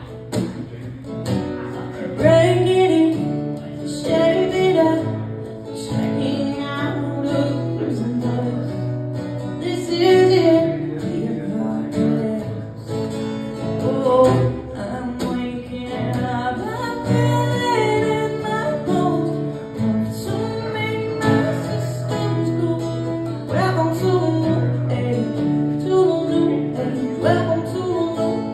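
A woman singing live to her own strummed acoustic guitar.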